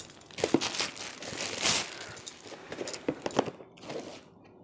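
Plastic packaging wrap crinkling and rustling as wrapped boxes are handled and unwrapped, with a few light knocks.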